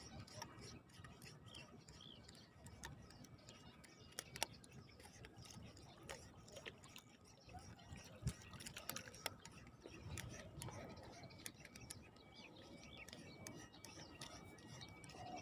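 Faint background hiss with scattered sharp clicks and ticks, the sharpest about four and eight seconds in, and faint high bird chirps.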